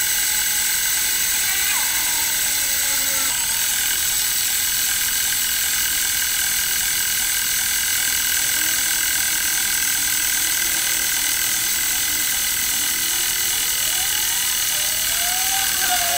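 Mini metal lathe running steadily, its motor and gear train giving a constant high whine while the tool turns the edges of spinning aluminium stock.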